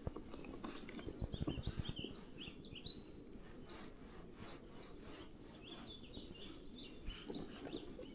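Small birds chirping and warbling almost continuously, with a quick run of soft low knocks about a second in.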